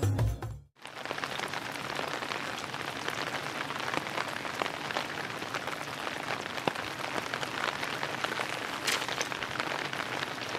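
Background music cuts off under a second in, followed by a steady fine patter of water with many tiny ticks.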